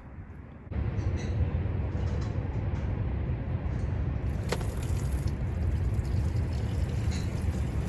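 Mazda RX-8's rotary engine running with a steady low rumble, starting abruptly about a second in, with a single sharp click near the middle.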